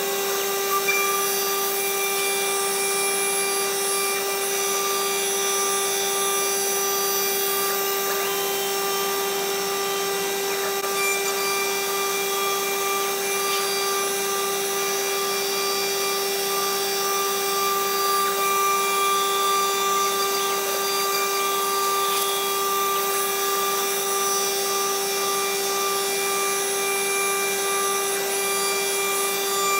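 CNC router spindle cutting a solid-surface sheet: a steady whine from the spindle with the hiss of the bit running through the material.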